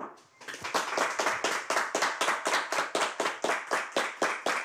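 Small audience clapping, a quick even patter of about five claps a second that starts abruptly and keeps up steadily.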